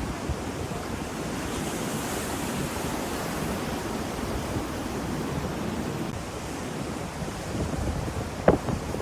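Ocean surf washing steadily, with a wave's hiss swelling about two seconds in. Near the end come a couple of short, sharp pops, which are the loudest sounds.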